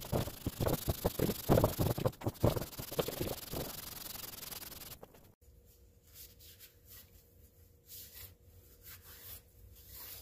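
Aluminium cylinder head of a Kawasaki FH721D V-twin being lapped: pushed back and forth by hand on wet abrasive paper in quick rasping strokes, about two or three a second, to flatten a badly warped gasket face. After about five seconds the strokes stop suddenly, leaving only faint rubbing of a rag on the head.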